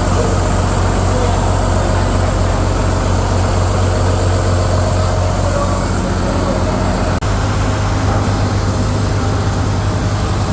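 Mycom refrigeration compressor and the Mitsubishi engine driving it running steadily on a test run: a loud, even low drone, with a momentary break about seven seconds in.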